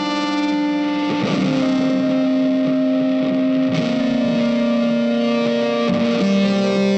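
Background music with long held notes that change together about every two and a half seconds.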